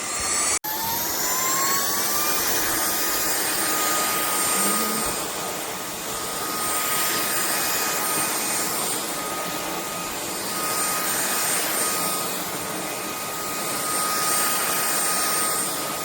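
INTETURE cordless stick vacuum running on a raised power setting. After a brief break about half a second in, its motor whine climbs in pitch over a couple of seconds as it speeds up, then holds a steady high whine over rushing air and cuts off suddenly at the end.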